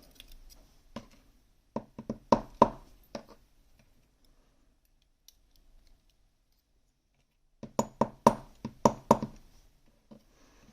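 Small metal lock parts handled and set down: a cluster of sharp clicks and knocks about a second in, a quiet stretch, then another cluster near the end.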